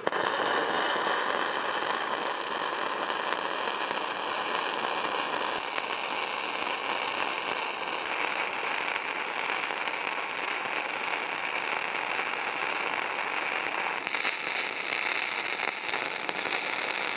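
Self-shielded flux-cored arc welding with 0.045 wire: a steady, continuous crackling and spitting arc as a fillet weld is run along steel plate. The self-shielded wire transfers in a globular mode.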